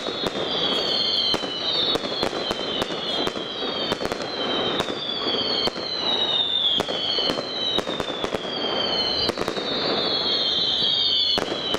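Fireworks display: an irregular run of sharp bangs and crackling reports, with a high falling whistle that recurs about once a second.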